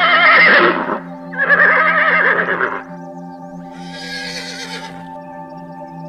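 Horse whinnying twice, two loud neighs of about a second and a half each with wavering pitch, followed about four seconds in by a fainter, higher call. Steady background music runs underneath.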